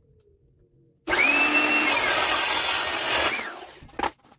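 Handheld metal-cutting circular saw spinning up with a rising whine about a second in, then cutting through steel tubing for about a second and a half before winding down. A short clunk follows near the end.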